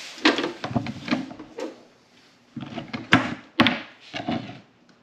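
Handling noise: a run of knocks, clunks and rattles as objects are moved and set down, in two bursts with a short lull between, including two sharp clicks about three and three and a half seconds in.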